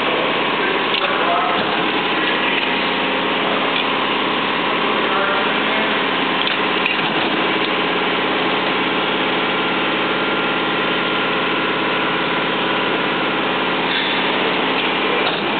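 Steady mechanical hum of running machinery, several held tones over a constant noise, at an even level throughout.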